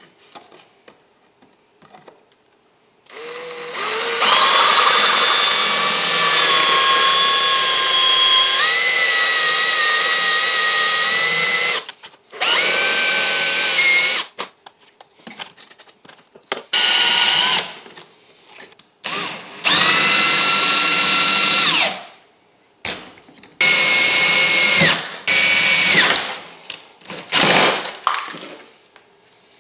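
Cordless drill with a 5/32 bit drilling out rivets from a rusted metal bracket: one long run of about nine seconds, its whine stepping up in pitch partway through, then five shorter bursts with pauses between them.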